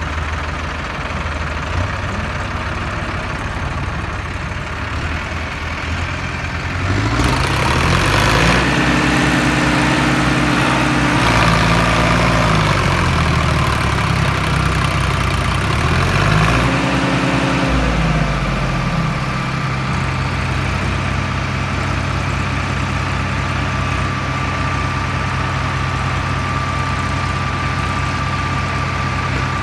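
Diesel tractor engines running, revved up hard twice between about seven and nineteen seconds in, the pitch climbing and dropping each time, then settling back to a steady idle. This is the sound of tractors straining to pull a tractor out of deep mud. A thin steady whine sits over the engines from about a third of the way in.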